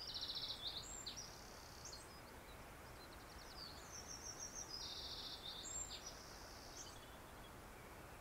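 High-pitched songbird trills in quick pulsed phrases, once at the start and again about four seconds in, over a faint steady hiss.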